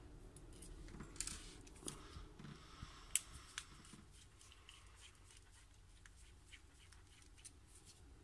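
Faint, irregular clicks and light taps of small aluminium RC-truck parts being handled and turned over in the hands, the sharpest about a second in and about three seconds in.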